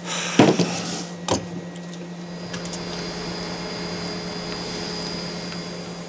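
Steady low mechanical hum of a small room, with a short clatter about half a second in and a sharp knock about a second later; a faint high whine joins after about two seconds.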